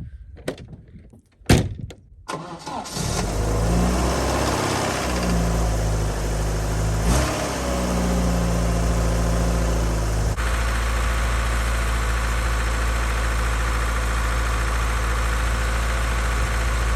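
Carburetted Zhiguli (classic Lada) four-cylinder engine cold-started: a few clicks, then it catches about two and a half seconds in and settles into a fast warm-up idle whose note wavers, changing abruptly about ten seconds in and then holding steady.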